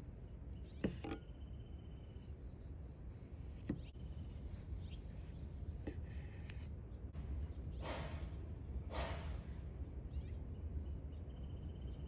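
Quiet outdoor ambience: a steady low rumble with faint chirps, a couple of light clicks, and two short soft swishes about eight and nine seconds in.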